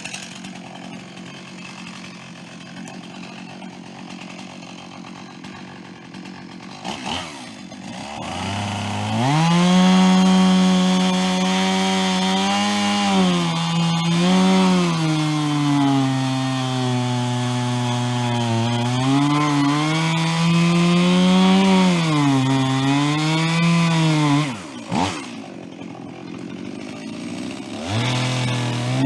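Gas chainsaw cutting through wood. It runs lower for the first several seconds, then revs up about nine seconds in, its pitch rising and falling as the chain loads in the cut. It drops off about twenty-four seconds in and revs up again near the end.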